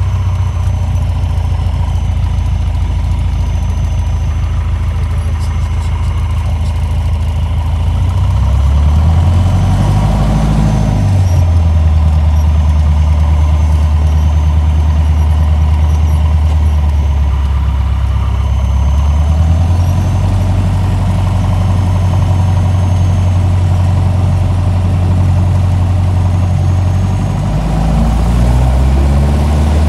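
Single-engine light airplane's piston engine and propeller running while taxiing, heard from inside the cockpit. The engine speed rises and falls a few times, picking up about nine seconds in and again near the end.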